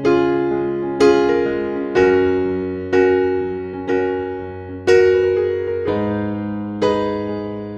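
Background music: soft electric piano playing slow sustained chords, struck about once a second and each left to fade.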